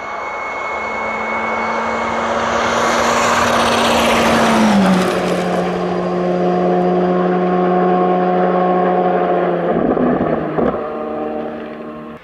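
Škoda Fabia R5 rally car at full throttle, coming closer and louder, then passing with a sharp drop in engine pitch and pulling away with a steady engine note. There is a brief break in the engine note about ten seconds in, as from a gear shift or lift, before it starts to fade.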